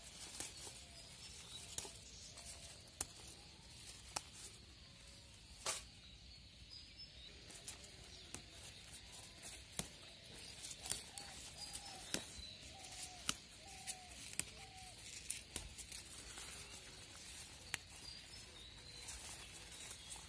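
Sharp close clicks and snaps at irregular intervals, roughly one a second, as sweet potato leaves are snapped off the vines by hand, with birds chirping faintly in the background.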